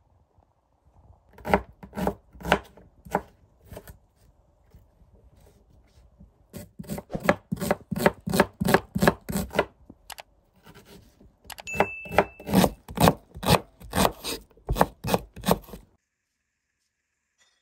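Chef's knife dicing an onion on a wooden cutting board: quick, even chops, about two to three a second, in three runs with short pauses between, stopping near the end.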